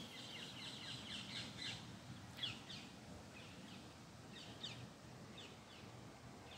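Small songbird singing: a rapid high trill in the first two seconds, then a scattering of short falling chirps, over a faint low background rumble.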